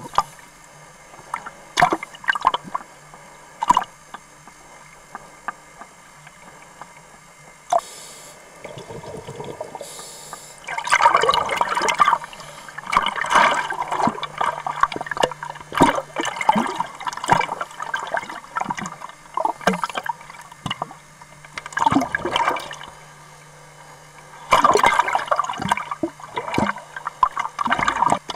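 Water bubbling and gurgling in irregular bursts of a few seconds each, with scattered clicks and a faint steady hum underneath.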